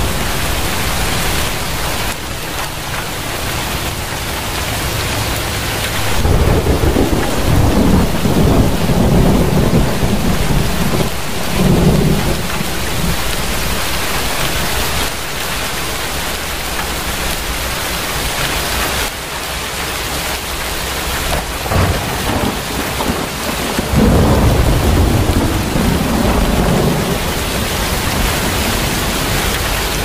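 Rain falling steadily, with low rolling rumbles of thunder swelling twice: from about six to twelve seconds in, and again around twenty-four seconds in.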